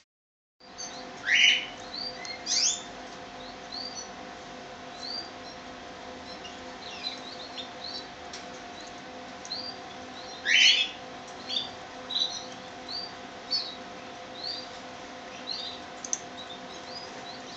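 Young Gloster canaries calling: many short, high, rising chirps every second or so, with a few louder calls that sweep downward, about a second in, two and a half seconds in and again around ten seconds in. A faint steady hum runs underneath.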